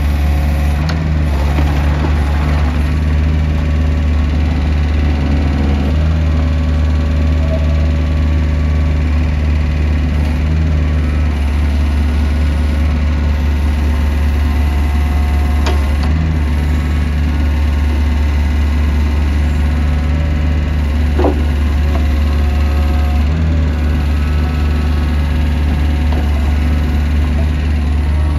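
Kubota KX71-3 mini excavator's diesel engine running steadily while its boom, arm and bucket are worked.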